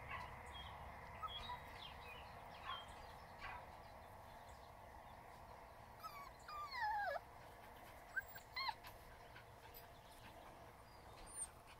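Schnauzer puppy whining: one falling whine about six seconds in, then a couple of short whimpers. Faint short chirps are scattered through the quiet.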